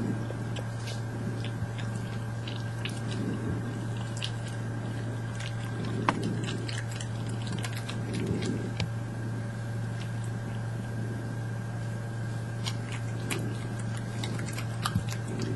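Badgers chewing and crunching nuts close up, with small sharp cracks of shell and wet munching coming in bouts every couple of seconds. A steady low hum runs underneath.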